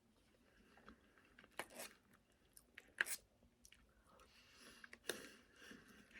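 A person chewing food, faint, with a few short sharp mouth clicks and smacks.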